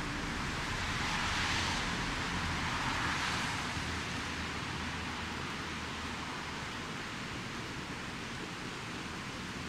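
Steady rushing outdoor background noise, swelling twice, at about one and a half and three seconds in, then even.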